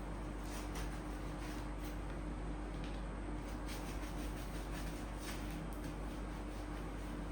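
Steady low electrical hum with a few faint, scattered clicks and rustles.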